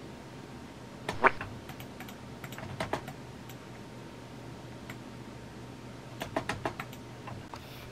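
Computer keyboard being typed on: scattered key clicks, a few in the first half and a quicker run of clicks past the middle.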